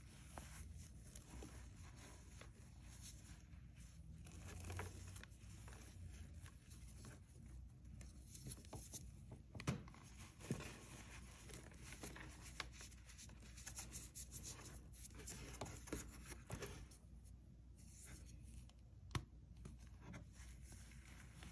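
Soft reformed cornstarch chunks being crushed and crumbled by hand: faint, continuous soft crunching and crackling, with a few sharper cracks about ten seconds in and again near the end.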